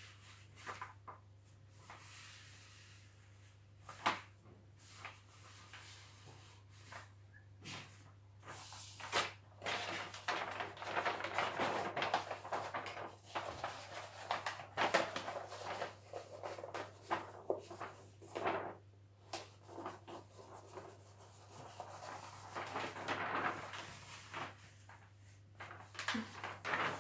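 Diamond painting canvas with its plastic cover film rustling and crinkling as it is unrolled and smoothed flat by hand, with scattered light clicks and taps. The rustling comes in long irregular stretches, thickest in the middle and again near the end.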